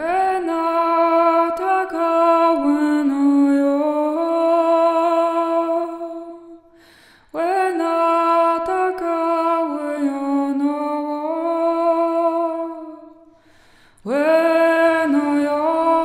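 A woman's voice singing long, held wordless tones, unaccompanied, with each note stepping slowly up or down. It comes in three long phrases with two short pauses between them.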